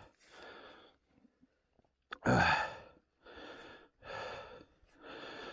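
A person panting hard and out of breath from physical exertion, taking about one breath a second, with one louder, heavier exhale about two seconds in.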